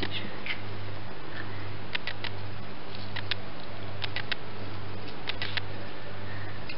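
Lemon juice dripping and spattering onto raw chicken and a plate: scattered small ticks in little clusters, over a steady low hum and hiss.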